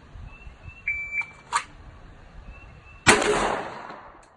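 Shot timer giving its start beep, then shots from a Glock 19X 9mm pistol: a sharp crack about half a second after the beep and a much louder burst of fire about three seconds in, fading out over about a second before the sound cuts off.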